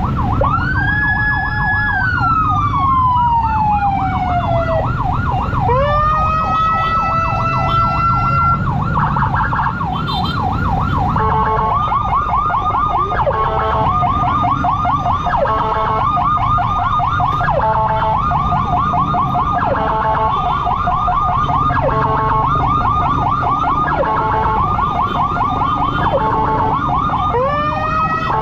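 Emergency sirens, loud and continuous: a fast warbling yelp runs throughout, with long rising-and-falling wail sweeps near the start and again near the end, and a repeating two-tone pattern about every two seconds from about a third of the way in. A steady low rumble of motorcycle engine and road noise lies underneath.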